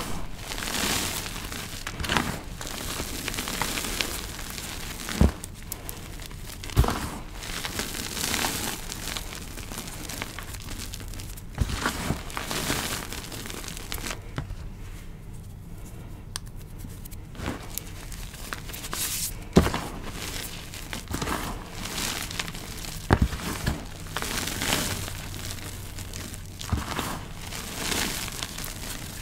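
Hands squeezing, pressing and crumbling loose dyed gym chalk powder: a run of soft crunching, crackling swishes with a few sharp clicks. There is a quieter pause of about three seconds midway.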